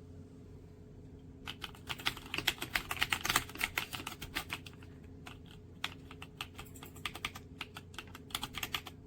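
Typing on the RK Royal Kludge S98 mechanical keyboard with pale green tactile switches and PBT keycaps. A fast flurry of keystrokes starts about a second and a half in, then thins to sparser strokes.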